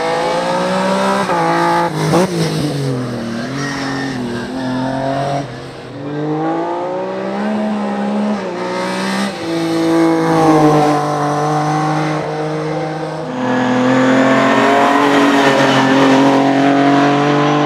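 Racing car engine revving hard under acceleration, loud, its pitch climbing and dropping sharply at each gear change several times, with stretches held at high revs.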